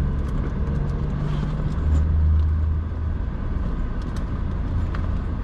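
Car engine idling, heard from inside the cabin as a steady low rumble that swells briefly about two seconds in.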